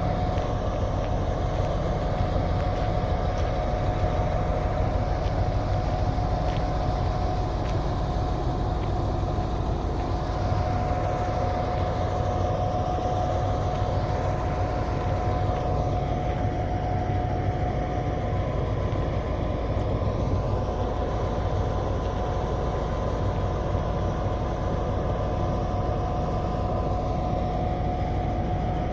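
An M62 diesel locomotive's two-stroke V12 engine idling at the head of a waiting freight train: a steady, unchanging drone with a constant high whine over it.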